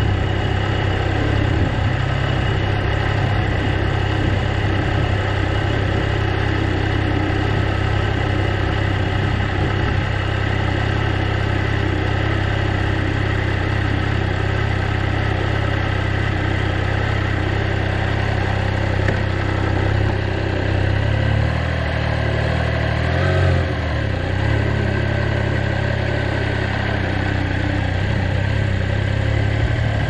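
Triumph Trident three-cylinder motorcycle engine idling steadily. About two-thirds of the way through, its pitch shifts and wavers as the bike pulls away, and it then runs on at low road speed.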